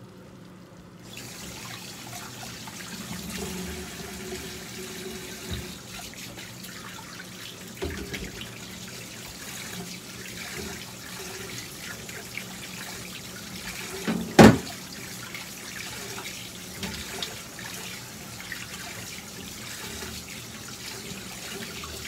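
Kitchen tap running into a stainless-steel sink while a bowl is rinsed under it, starting about a second in, with small clinks of dishware and one loud knock about two-thirds of the way through.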